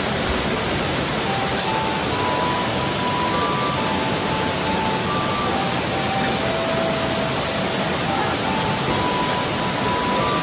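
Steady rush of a fast mountain river, the Kibune River, flowing over rocks. A faint simple melody of single held notes plays over it.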